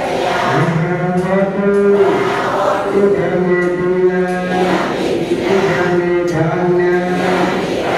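A group of men chanting together in long held notes, the phrases shifting in pitch every second or so without a break.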